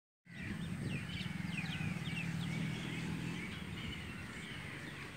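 Birds chirping, many short quick calls, over a steady low motor hum.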